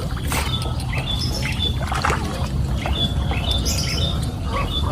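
Nine-day-old lovebird chicks begging while being hand-fed: short, high chirps repeated many times over a steady low rumble.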